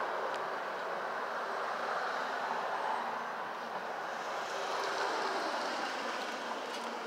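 Steady city street traffic noise, with cars going by that swell and fade gently.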